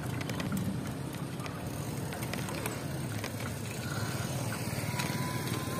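Steady wind and road rumble of a bike ride, with scattered small clicks and rattles. A faint thin whistle comes in near the end.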